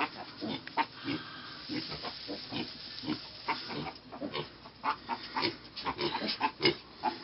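Miniature pig piglets grunting, many short irregular calls in quick succession.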